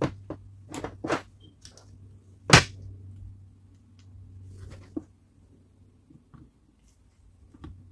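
Plastic housing parts of a Panasonic EY7441 cordless drill being handled and fitted together: a series of sharp clicks and knocks, the loudest about two and a half seconds in.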